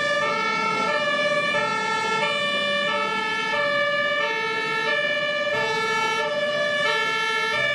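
Two-tone emergency siren of an airport fire truck, alternating evenly between a high and a low note, each held a little over half a second.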